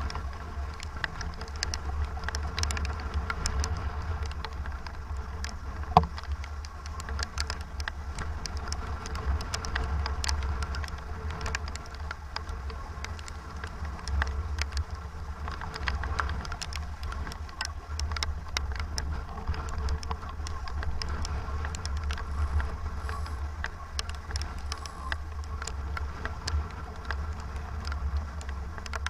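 Strong wind buffeting the microphone in a rough, low rumble, with rain tapping on it in many small clicks and one sharp knock about six seconds in.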